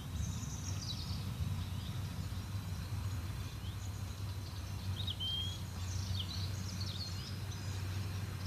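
Small birds chirping and whistling in short high calls, scattered throughout, over a steady low rumble.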